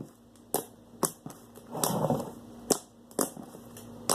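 Sharp pops and clicks, about six, spaced unevenly, from thick slime being worked with a spoon in a bowl, with a softer, longer noise about two seconds in.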